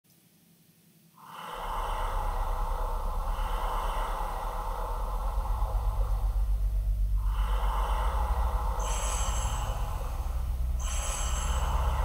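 Dark ambient horror soundscape: a deep, steady low drone comes in about a second in, with slow, heavy breath-like swells of hiss rising and falling over it, each lasting a few seconds.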